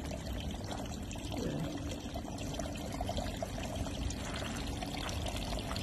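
Water running steadily into a stone fountain basin, an even pouring and trickling.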